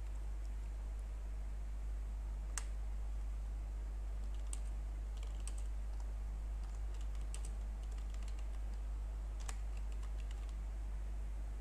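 Computer keyboard typing: keys clicking in short irregular runs, with two sharper single clicks, over a steady low hum.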